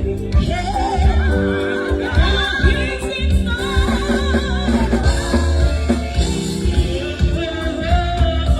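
Gospel song: a singer's voice with vibrato over live band music with a strong bass line and a steady drum beat.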